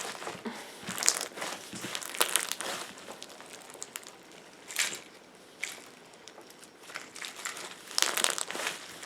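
Hands kneading slime packed with googly eyes and other add-ins, giving off bursts of wet crackling and squishing between quieter moments.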